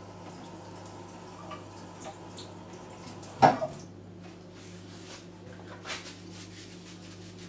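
Washing up at a stainless-steel kitchen sink: light water sounds and small clinks, with one sharp, loud clank about three and a half seconds in and a smaller knock near six seconds. A steady low hum runs underneath.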